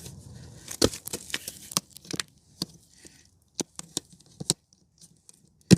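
Irregular sharp plastic clicks and snaps, about a dozen, as the engine compartment's side cover on a generator is pried off its push pins, with one loud knock near the end.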